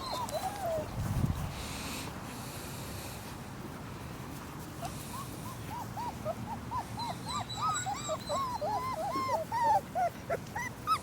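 Litter of three-week-old German shepherd puppies whimpering and squealing: many short, high, arching cries that overlap and come thicker in the second half. There is a soft low thud about a second in.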